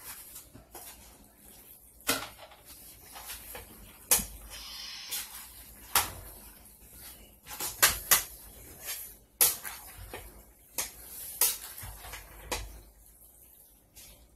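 A metal spoon stirring chicken and penne in a stainless steel pot, with irregular clinks and knocks of metal against the pot between softer scraping.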